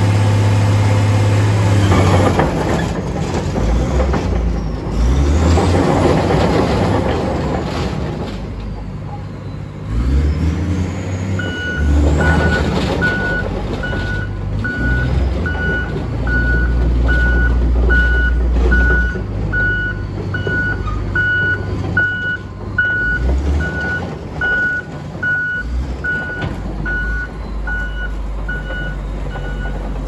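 2005 Komatsu D65PX-15 crawler bulldozer's diesel engine running under load as the machine drives, its pitch rising and falling in the first third. From about a third of the way in, its reversing alarm beeps steadily, about twice a second, as it backs up.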